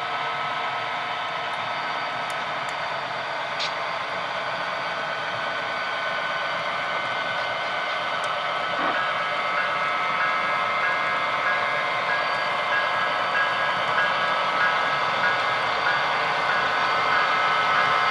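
Sound-equipped model diesel locomotives: a steady, slightly tinny engine drone through small onboard speakers, growing louder as the train approaches. A faint repeating higher tone joins about halfway.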